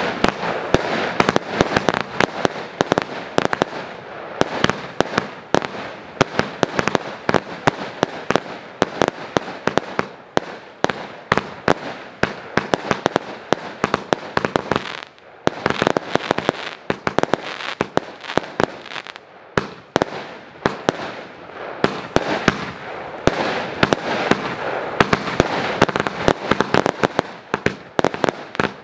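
Jack 2 consumer firework battery firing: a dense, unbroken run of shots and popping, crackling bursts. A brief lull about fifteen seconds in, then the barrage picks up again.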